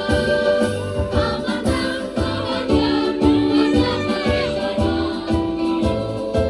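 Women's choir singing in unison and harmony over an accompaniment with a steady bass beat.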